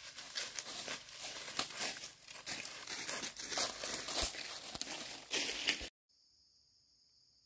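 Close, irregular rustling and crackling of dry material being handled or crumpled, which cuts off abruptly about six seconds in. Faint, steady insect chirping follows.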